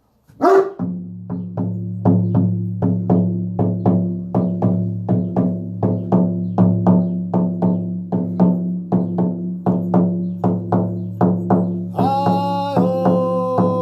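Hand drum beaten in a steady pulse of about two beats a second, its low ringing sustained between strikes, after a loud opening hit. Near the end a chanting voice joins on long held notes.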